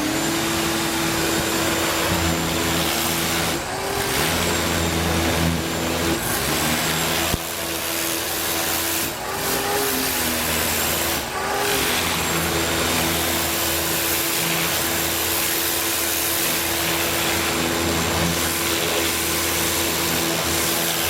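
Ryobi 1600 PSI electric pressure washer's motor and pump starting up and running with a steady whine, dipping briefly in pitch a few times, while the wand sprays water to strip loose paint.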